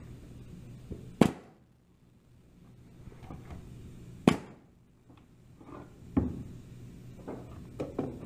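Pneumatic finish nailer firing twice, about three seconds apart, each a sharp crack as it drives a Raptor plastic composite finish nail into a sycamore offcut and sets it countersunk. A lighter knock follows later on.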